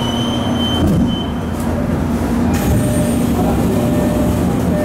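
Tokyo Metro 05 series subway train heard from inside the car, braking into a station stop: wheels rumbling on the rails under a steady motor hum, with a thin high squeal in the first second or so.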